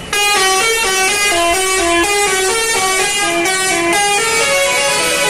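Indonesian bus 'telolet' musical horn playing a quick melody: stepped notes that change pitch several times a second. It starts suddenly just after the opening.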